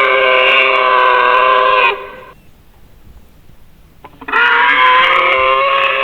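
Nanotyrannus creature sound effect: a long, steady, pitched call that breaks off about two seconds in, then after a two-second pause a second long call starts.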